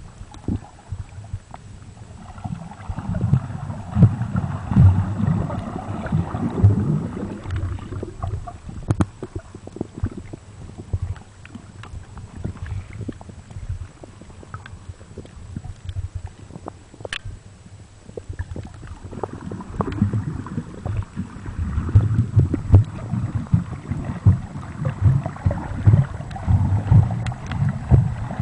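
Muffled underwater sound picked up through a camera's waterproof housing: water rumbling and sloshing against the housing, with many small clicks and knocks. It swells louder for a few seconds near the start and again through the last third.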